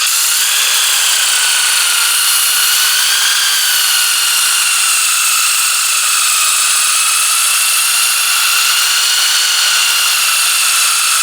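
Power tool spinning a 240-grit sandpaper disc with a knife blade held against it to sharpen the edge. It makes a steady high whine that wavers slightly in pitch, over a grinding hiss.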